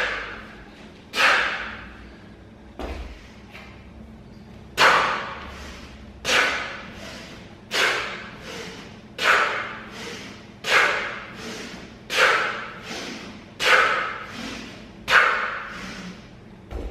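A man exhaling forcefully during repeated kettlebell swings, one sharp breath with each rep, about every one and a half seconds. There is a short pause in the rhythm a few seconds in.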